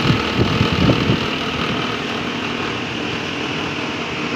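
Nissan Patrol engine running steadily at idle, with a few low knocks in about the first second. The alternator's mounting bolt is loose, so the alternator vibrates and makes noise with the engine running.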